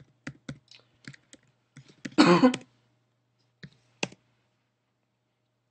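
Computer keyboard keys clicking in scattered single presses as a terminal command is typed, with a short cough a little after two seconds in, the loudest sound. The last two clicks come about four seconds in.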